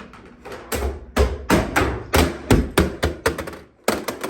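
A small robot vacuum tumbling down a flight of stairs: a rapid, irregular run of about a dozen hard clattering knocks as it hits step after step. The knocks begin about half a second in and stop just before the end.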